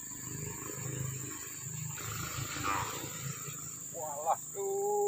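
Steady high buzz of an insect chorus, with a brief splashing rush about halfway through as a small fish is pulled from the river. Near the end a man calls out in a rising, then drawn-out voice.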